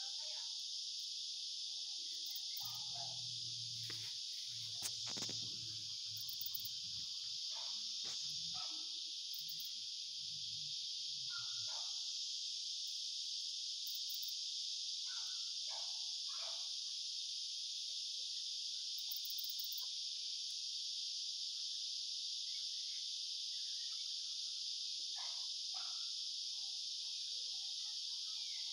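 A steady, high-pitched chorus of insects singing without a break. Faint short calls come through at scattered moments, over a low hum that fades out about ten seconds in.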